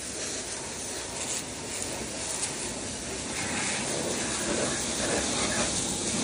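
Pressure-washer water jet hissing as it is sprayed against a tractor's diesel engine, blasting off built-up oil.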